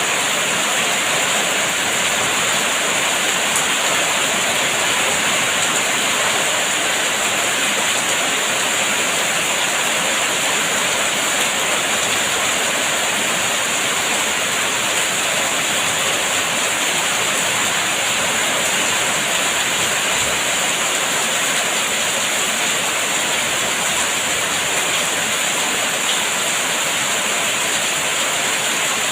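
Heavy rain falling steadily: a dense, even hiss with no separate drops, thunder or other events standing out.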